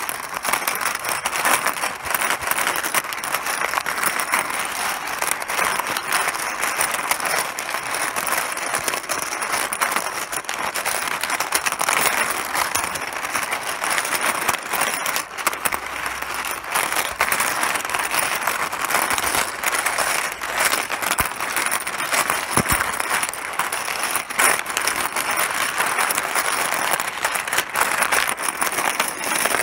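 Mahjong tiles clattering in a dense, continuous stream of small clicks, with one sharper knock about three quarters of the way through.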